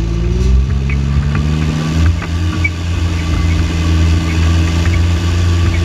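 Fendt 820 tractor's six-cylinder diesel engine running, heard close to its exhaust stack; its pitch climbs over the first couple of seconds, then holds steady, with faint ticks throughout.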